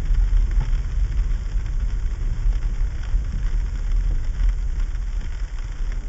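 Steady low rumble of a car driving slowly on a sleet-covered road, heard from inside the cabin: engine and tyre noise, with a few faint ticks.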